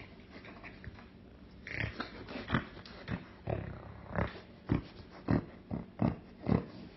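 A man making playful mock-eating noises with his face pressed into a cat's fur: about a dozen short grunting, munching bursts, roughly two a second, starting about two seconds in.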